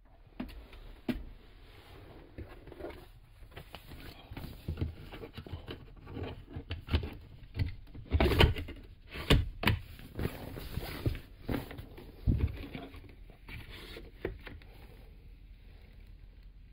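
Irregular rustling, scraping and knocks of someone moving about and handling things inside a van, loudest in a cluster of knocks just past the middle and dying down near the end.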